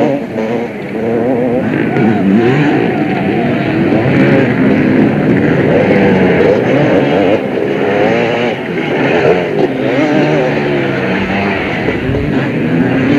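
Several motocross bikes revving hard on the track, their engine notes rising and falling over one another without a break.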